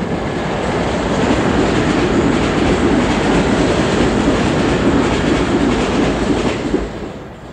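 London Underground train passing on an above-ground stretch: a loud rumble and clatter of wheels on rails that swells over the first second or so, holds steady, then falls away sharply near the end.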